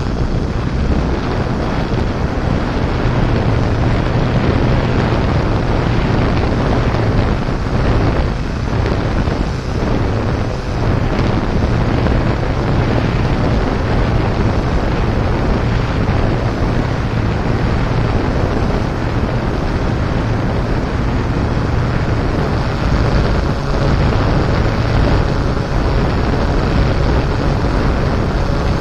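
Heavy wind noise buffeting the microphone, with a steady low hum underneath.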